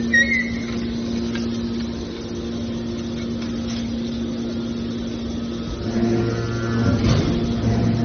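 Hydraulic power unit of a scrap metal baler running with a steady hum. About six seconds in, the sound deepens and grows louder.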